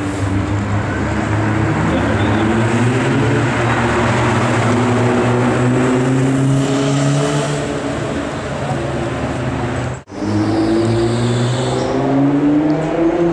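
Nissan GT-R's twin-turbo V6, breathing through an aftermarket exhaust, accelerating hard and loud, its note rising in long pulls. The sound drops out suddenly and briefly about ten seconds in, then another rising pull follows.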